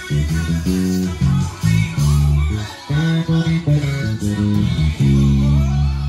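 Five-string Ken Smith electric bass guitar played fingerstyle: a line of held low notes, each changing to the next after half a second to a second.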